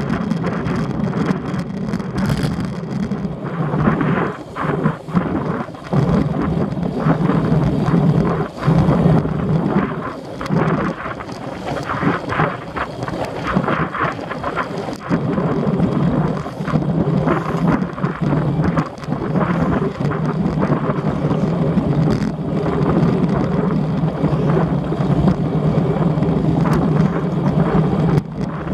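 Wind buffeting the microphone of a Shimano sport camera mounted on a moving road bike: a continuous loud rumble that surges and dips unevenly.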